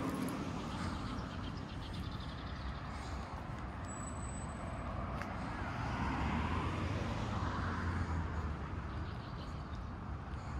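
Street traffic passing on a city road, a steady rush of vehicles, growing louder a little past the middle as a heavier vehicle goes by.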